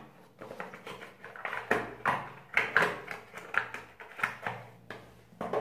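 Cardboard packaging being handled and unfolded: a string of short rustles and crinkles, about two or three a second, irregular.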